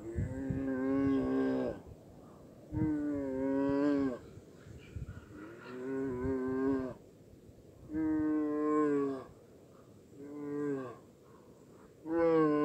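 Young brown bear calling: six drawn-out pitched calls, each holding its pitch and dropping at the end, coming about every two seconds.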